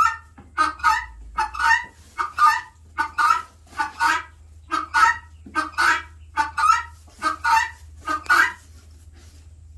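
Helmeted guineafowl giving its loud alarm call: a rhythmic run of short, harsh calls, about two a second, that stops about a second before the end.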